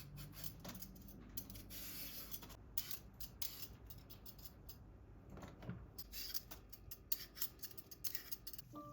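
Faint, irregular short scraping and cutting strokes from food preparation.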